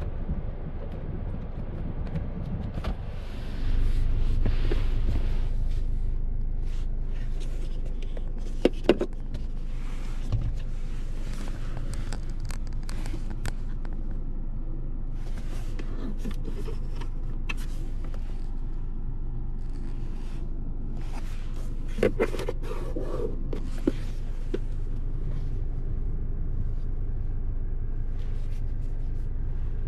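2024 Mazda CX-5 2.5 S Premium on the move, its 2.5-litre four-cylinder engine and the road making a steady low rumble. The rumble gets louder suddenly about four seconds in, then slowly eases off. A few light clicks and knocks come at odd moments.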